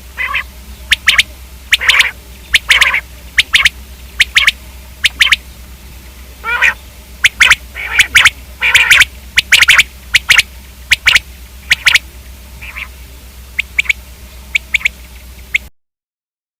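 Common quail calling: a long run of short, sharp calls in irregular clusters and quick pairs, over a steady low hum. The calls and the hum stop abruptly near the end.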